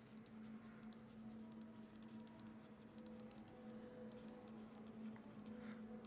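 Faint ticks and light scratching of a stylus writing on a tablet screen, over a faint steady hum.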